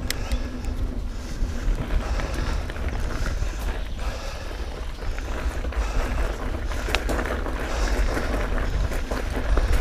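Wind buffeting the microphone over the rolling noise of a mountain bike on a dirt forest trail, with a few sharp clicks and rattles from the bike, the strongest about seven seconds in.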